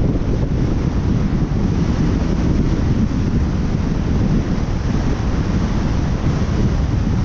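Steady wind noise on a GoPro's microphone as a snowboard runs fast down a groomed slope, with the board's hiss over packed snow mixed in. No single event stands out.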